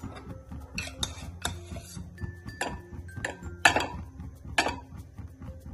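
Metal spoon clinking and scraping against an aluminium pan as ghee is knocked off it into the pan: a handful of separate clinks and short scrapes, the loudest nearly four seconds in.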